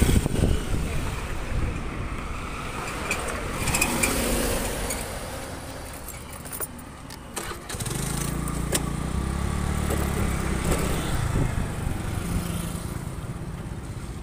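Road and traffic rumble, then about eight seconds in a motorcycle engine comes in and runs steadily.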